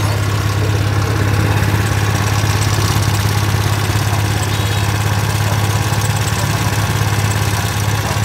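Subaru SGV2600 portable generator's four-stroke petrol engine running steadily on a test run, a loud, even low hum.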